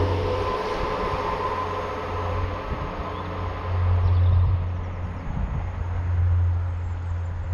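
A passing train dying away down the line: rail and running noise fading, with a few steady tones that fade out within the first couple of seconds.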